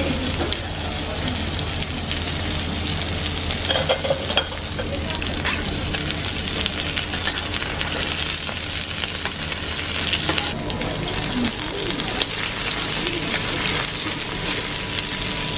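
Beef small intestine (gopchang) sizzling on a tabletop barbecue grill, with a dense, steady crackle of spitting fat. A low background hum stops about two-thirds of the way through.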